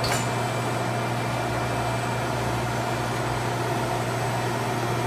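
Landis LCHH plain cylindrical grinder running with no work in it: the 30-inch grinding wheel spinning on its spindle motor and the hydraulic pump on, a steady low hum.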